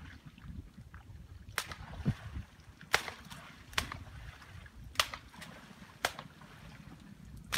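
A series of about six sharp clicks, irregularly spaced roughly a second apart, over a low steady rumble.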